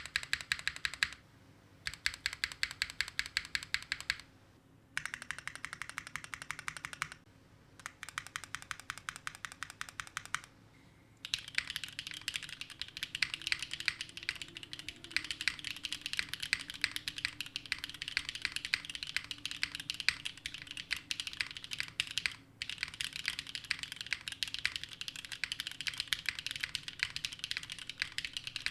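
Typing on Gateron Sage linear mechanical switches in a Neo60 Core keyboard. The first ten seconds are short runs of rapid, evenly spaced keystrokes with pauses between them. After that the typing is fast and continuous, with a brief break a little past two-thirds of the way in.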